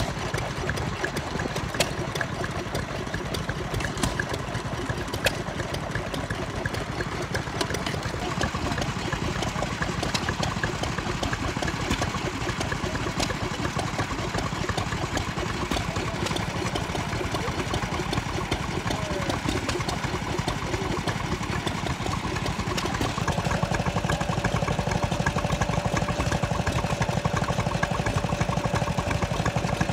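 Vintage stationary engine running steadily, a fast even run of firing beats. About twenty-three seconds in the sound grows louder and a steady hum joins it.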